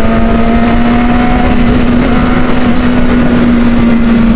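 Honda 600 cc inline-four sport motorcycle engine running at steady high revs while riding, its pitch holding nearly constant, with wind rush over the microphone.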